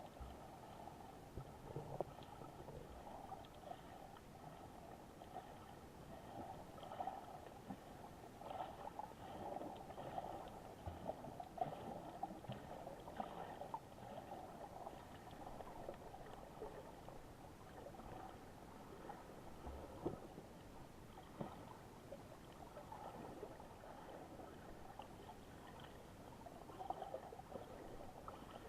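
Faint sea water lapping and gurgling, with small irregular splashes.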